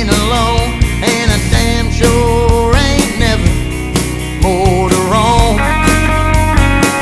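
Rock music with a steady beat and a lead melody of bent, wavering notes.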